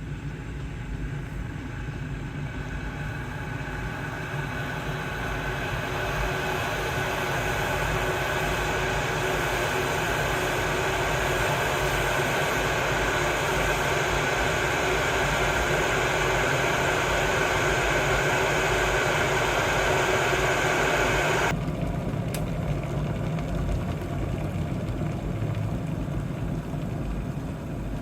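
Electric gooseneck kettle heating water toward the boil: a steady rushing noise that grows louder over several seconds, then cuts off suddenly about 21 seconds in as the kettle switches off at the boil, with a faint click just after.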